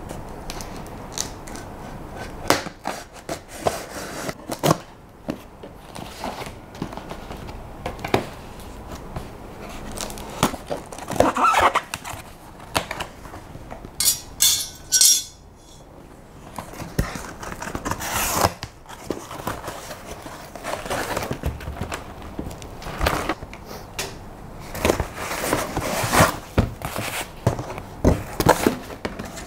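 A cardboard shipping box being cut and torn open and unpacked: blade scrapes on cardboard, flaps and packing handled with knocks and rustles, and a quick crackling rip about halfway through as packing tape is peeled off.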